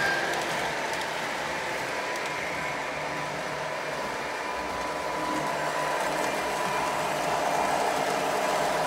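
Lionel O-gauge model trains running on three-rail track: a steady whir of wheels and electric motors, with a faint steady whine.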